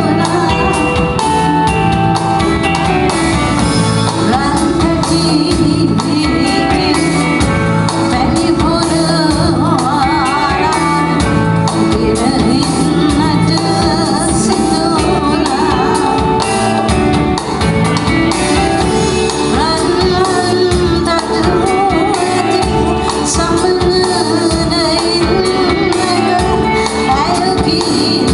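A live band plays a Sri Lankan classic pop song, with a woman singing lead over electric bass, congas and drum kit.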